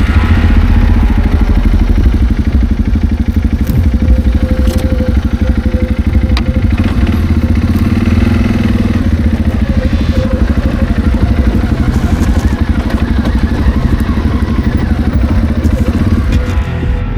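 A loud engine running steadily, with a fast, even throb.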